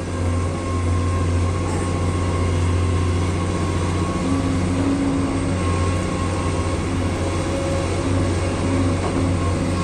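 Heavy diesel engine of mining equipment running steadily with a deep drone; a slightly higher hum joins briefly twice, about four and eight seconds in.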